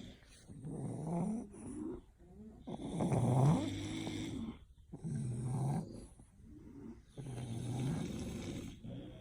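English bulldog snoring: four long, rasping snores in a row, each with a wavering pitch, the one about three seconds in the loudest.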